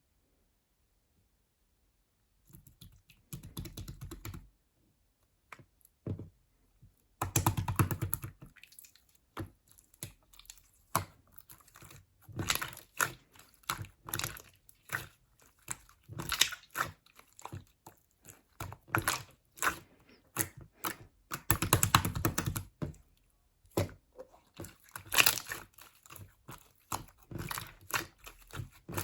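Close-up handling sounds: an irregular run of clicks and taps mixed with rustling and crinkling, starting about two seconds in.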